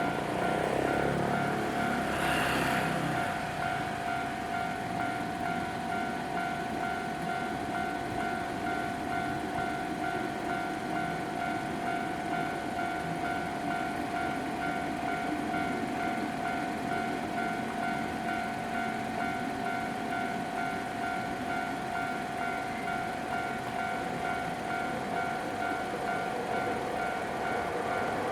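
Japanese railway level-crossing warning alarm ringing steadily with a repeating tone, warning of an approaching train. A brief rushing noise passes in the first few seconds.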